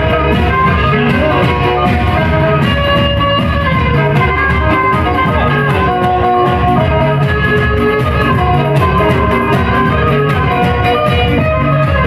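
Instrumental passage of live Black Sea (Karadeniz) folk music: a kemençe melody over band accompaniment with a steady beat.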